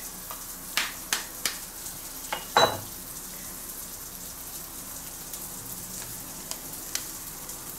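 A kitchen knife taps an eggshell several times to crack it, with sharp clicks in the first second and a half. A brief grunt comes from the cook about two and a half seconds in, then soft shell sounds as the egg is pulled open by hand. A frying pan sizzles steadily underneath, left on full heat with bratwurst pieces in it.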